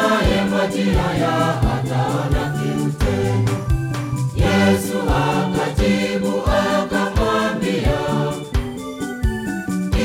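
Church choir of mixed men's and women's voices singing a gospel song in parts over a steady beat with a bass line.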